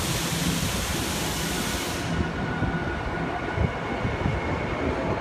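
Tokyo Metro 05 series subway train pulling out of an underground station: a hiss of air for the first two seconds, then the low rumble of the cars moving off with a faint high whine.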